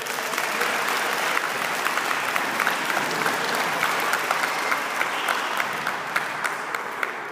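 Crowd applauding, a dense patter of many hands clapping that tapers off near the end.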